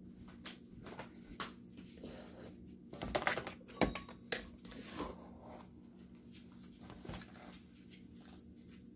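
Clicks, light clatter and rustling of a plastic container and a metal measuring cup being handled as brown sugar is scooped out, busiest with a cluster of sharp clicks and scraping about three to four seconds in.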